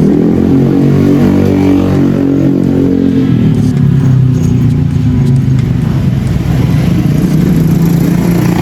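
A motor vehicle engine running close by; its pitch shifts and dips lower about three seconds in.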